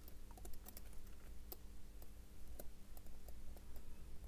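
Faint, irregular light clicks of steel tweezers and a pegwood stick tapping and nudging the train bridge of a Seiko 6139 chronograph movement, working the wheel pivots into line so the bridge can seat.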